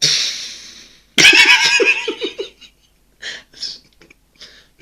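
A person making a sound effect with the mouth: a hiss of air that fades over about a second, then a loud, shaking, pitched vocal burst with a rapid pulse, then a few short faint breaths.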